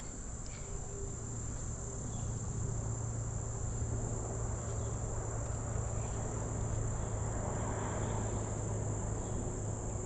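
Steady high-pitched drone of insects, holding on without a break. A single sharp click right at the start.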